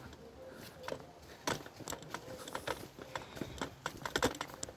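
Footsteps walking along a forest trail: a string of short, irregular steps and knocks.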